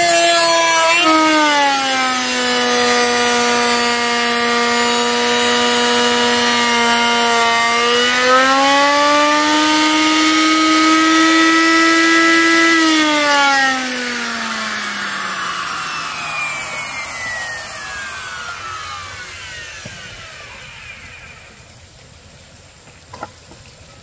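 A motor running with a steady whine. It drops in pitch about a second in and rises again around eight to ten seconds. Just after thirteen seconds it gets quieter and winds down, its pitch falling steadily as it fades out.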